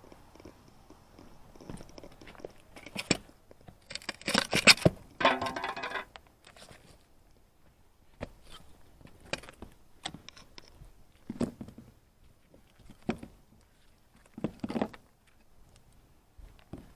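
Irregular knocks, clicks and scrapes of metal scrap being handled on a fishing magnet. A burst of clattering comes about three to five seconds in, followed by a short grating metal scrape, then single knocks every second or two.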